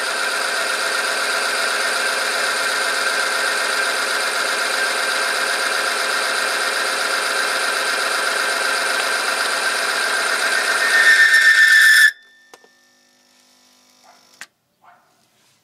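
Oil film-strength test machine under heavy load: the electric motor drives the steel ring against the test sample in hot engine oil, giving a loud, steady screeching whine with several tones. About eleven seconds in it swells, pulses and rises in pitch, then cuts off abruptly as the machine stalls, the oil film having given way under the load. A few faint clicks follow.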